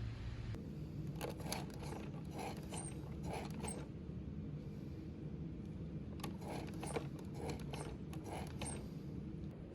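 Two bursts of rapid mechanical clicking and rattling, the first about a second in and the second about six seconds in, each lasting two to three seconds.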